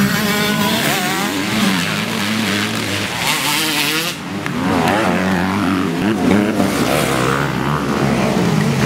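Several 250 cc dirt bike engines racing, their pitch repeatedly climbing and dropping as riders open and close the throttle, with more than one bike heard at once.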